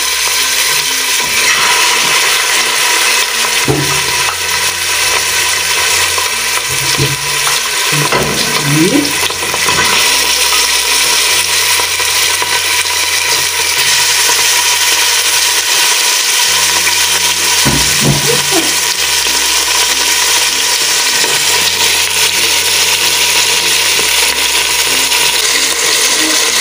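Chicken pieces frying in hot oil in a pot, a loud, steady sizzle as they brown and sear.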